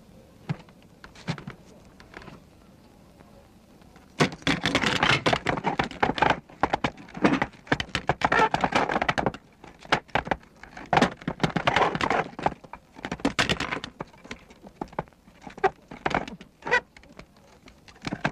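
Animated-film sound effects: a few faint clicks, then from about four seconds in, loud bursts of rapid rattling clatter with short pauses between them. The clatter sounds like small metal parts and a mechanism shaking apart.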